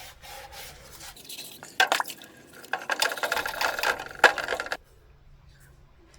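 Scotch-Brite pad rubbed by hand against the inside wall of a rusty air-cooled VW cylinder barrel, a fast rasping scrub broken by a couple of sharp knocks, stopping shortly before the end.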